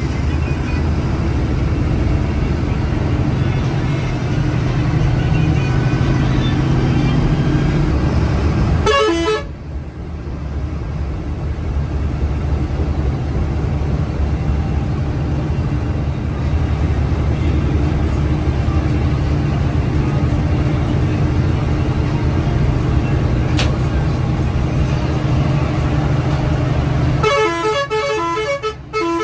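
Moving bus: steady engine and road rumble, with vehicle horns honking. The sound breaks off abruptly about nine seconds in and picks up again. Near the end the rumble gives way to a run of short repeated tones.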